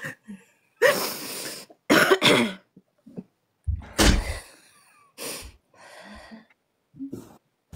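A woman coughing and clearing her throat in several short bursts while weeping.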